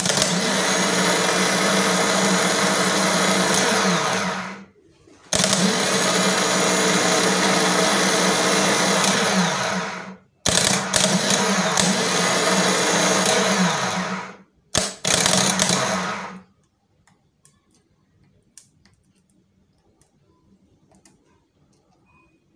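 Peugeot 406 starter motor, just serviced, run on the bench straight from a car battery and spinning freely: three runs of about four to five seconds each, then two short bursts, each one winding down as the current is cut.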